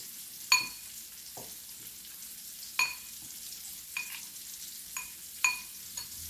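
Chicken frying in hot oil, a steady sizzle, with a metal utensil striking the pan about six times in sharp, briefly ringing clinks.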